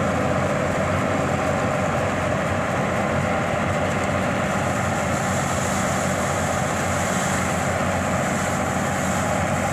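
Bizon Z056 combine harvester's six-cylinder SW-400 diesel engine running steadily under load while the combine threshes standing grain.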